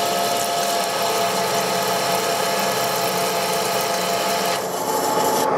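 TOS SN63B lathe turning a metal wheel hub with a high-feed insert at 0.48 mm per revolution and 3 mm depth per side: a steady, hissing cutting noise over the lathe's gear hum, with several steady tones in it. The cut ends about four and a half seconds in, leaving the lathe running. The insert is cutting cleanly at this heavy feed and leaving a fine finish.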